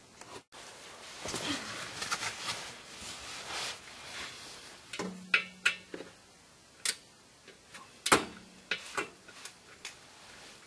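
Hand tools and metal parts handled by hand at a car's clutch and flywheel: soft rustling at first, then a string of sharp clicks and light metallic taps over the second half.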